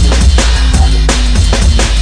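Jungle (drum and bass) record playing: fast breakbeat drums over a heavy sub-bass line.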